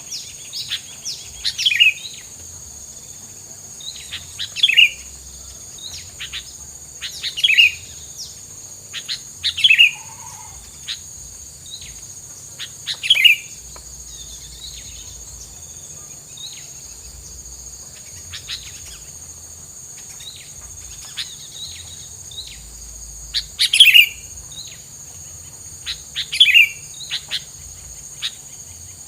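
Tilang bird singing in repeated short phrases, each a quick run of sharp notes dropping into a strong lower note, about every two to three seconds with a quieter stretch in the middle. A steady high, insect-like whine runs underneath.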